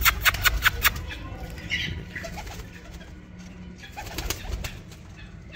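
Birds' wings flapping hard as they take off, a quick run of sharp wing claps about six a second, followed by a few short bird calls and softer fluttering, with another brief flurry of flapping about four seconds in.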